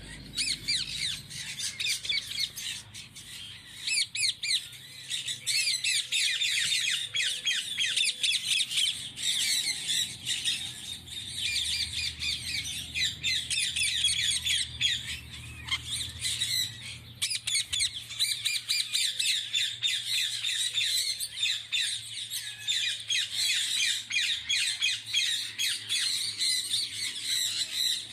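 Many parrots squawking and chattering at once, their shrill calls overlapping continuously.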